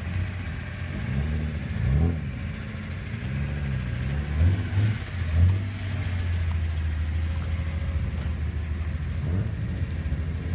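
Old Japanese cars on loud aftermarket exhausts: several throttle blips, each rising and falling in pitch, then a steady low exhaust drone as a Nissan Skyline 'Japan' pulls away, with a few more blips near the end.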